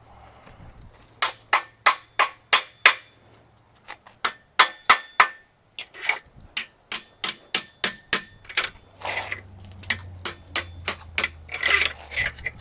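Rapid metal-on-metal knocks with a slight ring as main bearing caps on a Big Cam Cummins diesel block are worked loose. The knocks come two to three a second in runs, starting about a second in, with a brief pause around three seconds in.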